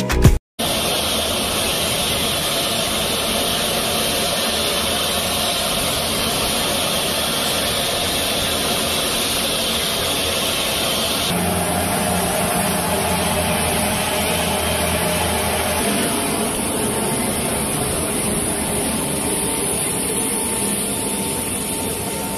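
Steady jet-engine noise with a constant high whine, from a large military transport aircraft running on the apron. About eleven seconds in, the sound shifts and becomes deeper and fuller.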